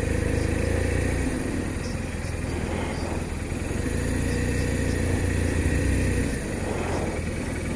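BMW R1200RT's boxer-twin engine running steadily at low revs as the bike creeps along in slow traffic.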